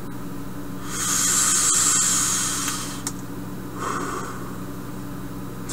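A drag on a box-mod e-cigarette: about two seconds of airy hiss as air is pulled through the atomizer's airflow holes over the firing stainless-steel coil, set to 180 degrees in temperature-control mode, then a shorter, softer breathy exhale about four seconds in.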